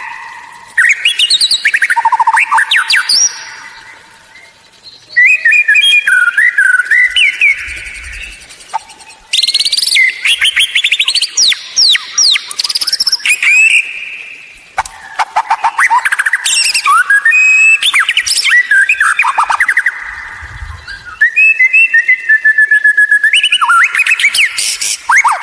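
White-rumped shama (murai batu) singing loudly in a string of varied phrases: rapid repeated notes, trills, chatters and rising and falling whistles, each phrase a few seconds long with short pauses between.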